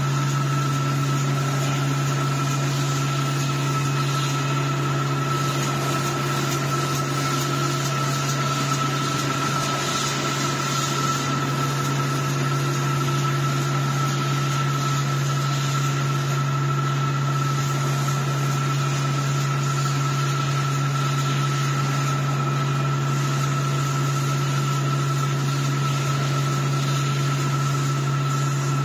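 Facial tissue single-pack wrapping machine running: a steady low mechanical hum with a constant high whine over it, unchanging throughout.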